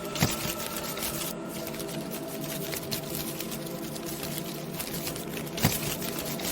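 Layered Halloween ambience sound bed: constant dense crackling and clicking over a steady hum of held tones. Two sharp knocks stand out, one just after the start and one near the end.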